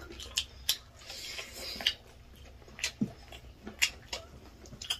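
Close-up eating sounds: chewing and wet mouth smacks, with small clicks of hands working rice on the plates, coming as a string of short, scattered clicks.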